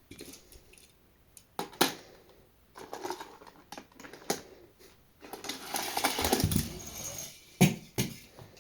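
Small toy cars being handled on a hard surface: scattered sharp clicks and knocks, with a longer rattling, scraping stretch from about five to seven seconds in.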